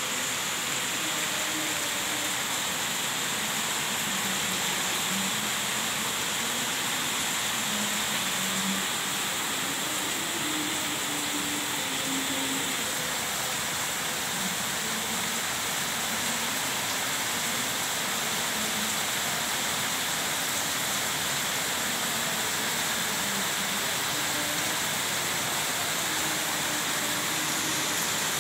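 A steady, even rushing hiss with no breaks, like heavy rain or running water.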